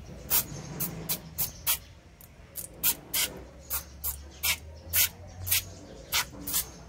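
Aerosol foam can sprayed in a quick series of short hissing bursts, about two a second, as foam is piled onto a diecast model car.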